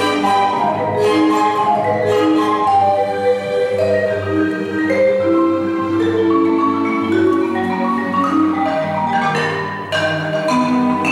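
Solo marimba played with mallets over a string orchestra, in a concerto for marimba and strings, with the strings holding long bowed notes beneath the marimba line.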